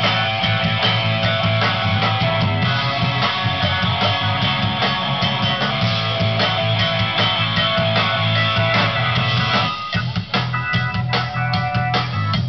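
Live rock band playing electric guitar and drum kit over a steady low end. About ten seconds in, the full sound drops back to sparser drum hits and guitar.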